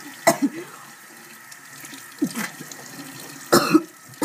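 A person coughing harshly in three fits about a second and a half to two seconds apart, the choking cough of someone who has just taken a spoonful of dry ground cinnamon.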